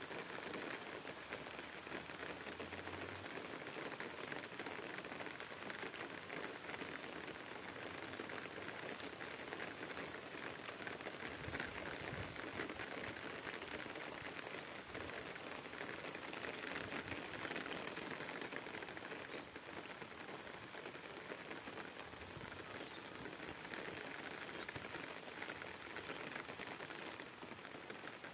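Steady light rain pattering on water and leaves, a dense, even crackle of drops.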